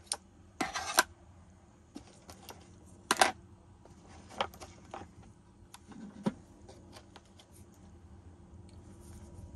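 Plastic clicks, knocks and rattles as a small drone, a card-reader adapter and a memory card are handled and set into a foam-lined carry case, with two louder clatters about a second in and about three seconds in.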